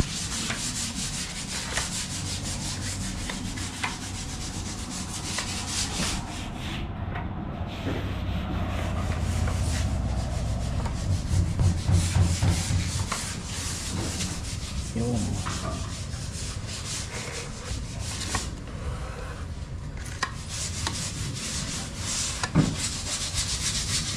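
Dried wall putty being sanded with sandpaper: a steady scratchy rubbing made of many quick strokes, easing off briefly about a third of the way in.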